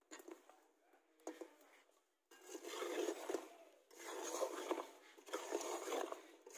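Flat metal spatula scraping around a large metal karahi as fried pitha are turned in sugar syrup. Faint taps for the first two seconds, then several long scraping strokes in quick succession.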